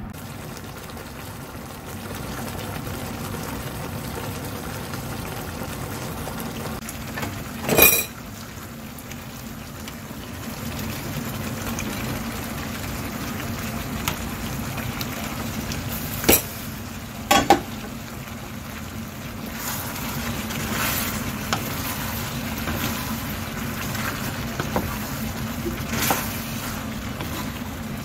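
Venison and vegetable stew simmering and bubbling in a frying pan, later stirred with a wooden spatula. There is a sharp clatter of pan and utensils about eight seconds in, two more close together about halfway through, and lighter knocks of stirring near the end.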